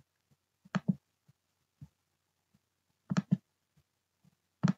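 Computer mouse clicking: three pairs of sharp clicks, about a second in, about three seconds in and near the end, with fainter ticks between.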